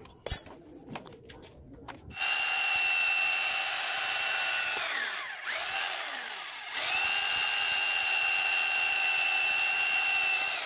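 A few clicks as an 8 mm twist bit is fitted in the chuck of a 900-watt corded electric drill. About two seconds in, the drill starts boring into a wooden plank with a steady whine. It winds down with a falling pitch, briefly restarts, then runs steadily again, the bit cutting through the wood well.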